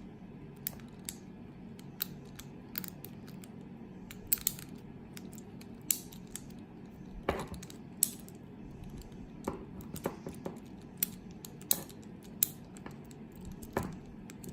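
Lock-picking tools in a brass four-lever padlock: an overlifter and tension wrench working the levers, giving irregular small metallic clicks and ticks, with a few louder clicks.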